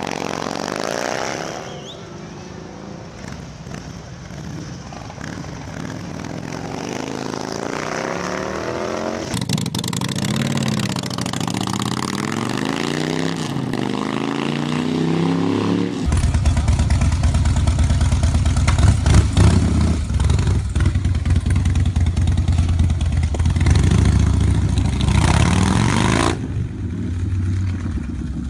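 Loud motorcycle exhausts in a series of short cuts. First a Big Dog K9 chopper pulls away. Then a Harley-Davidson XL 1200 Sportster's V-twin with open pipes revs up and down as it rides along, and from about sixteen seconds in a V-twin runs hard with a deep, steady pulse, with another bike on a Bassani exhaust near the end.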